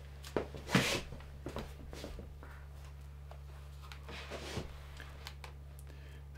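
Faint camera handling noise as the camera is moved: a couple of short rustles in the first second and scattered light clicks, over a steady low hum.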